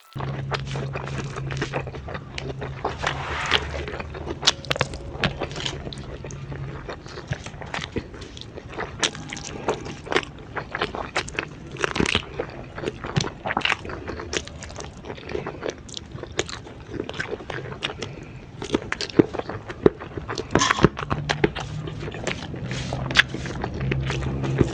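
Close-miked mukbang eating of a lalapan and grilled-chicken meal: a steady run of crisp bites and crunchy chewing with many sharp crunches. A low hum sits under it at first and again near the end.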